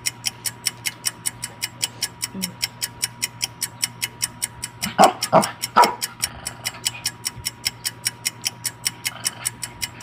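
A dog barks three times in quick succession about five seconds in, wanting the papaya being eaten. Under it runs a fast, even ticking, about five ticks a second.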